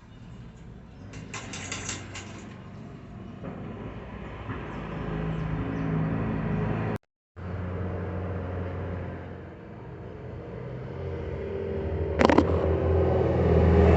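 A motor vehicle's engine running, with a steady low hum that grows louder toward the end. The sound cuts out completely for a moment about halfway.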